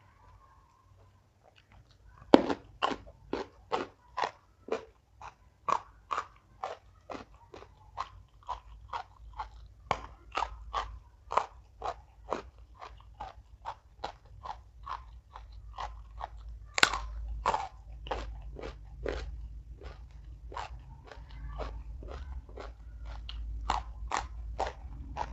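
Close-up chewing of crunchy raw vegetables and young jengkol beans: a hard bite about two seconds in, then steady crisp crunches at two to three a second, with another hard bite about seventeen seconds in.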